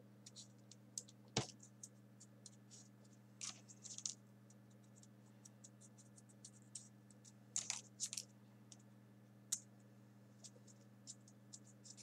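Faint crisp crackles and clicks of small folded printer-paper pieces being pushed into the pockets of a 3D origami model, in scattered clusters, with one sharper tap about a second and a half in. A low steady hum runs underneath.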